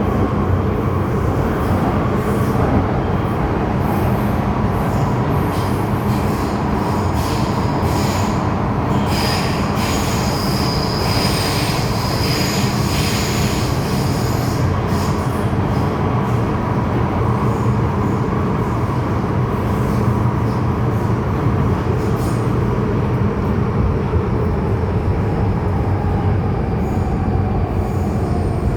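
MTR M-Train electric multiple unit running on the Tseung Kwan O Line, a steady rumble of wheels on rail with a hum. About a third of the way in, the wheels squeal for several seconds.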